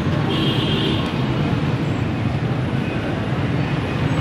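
Steady low rumble of background noise, with a faint high tone about half a second in.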